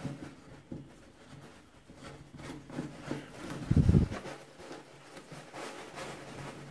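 Plastic parts rubbing and clicking as a black plastic extension tube is pushed and twisted into the connector of a Parkside PFR 28 A2 patio cleaner head, with one dull knock about four seconds in.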